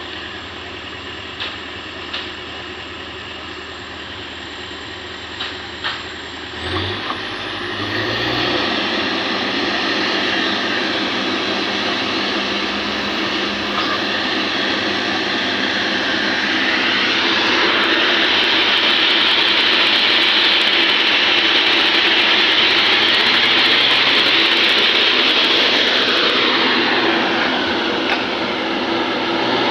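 Kobelco hydraulic excavator's diesel engine running with a few knocks, then revving up about seven seconds in and working under load. A loud rushing whine rises in the middle and falls away a few seconds before the end.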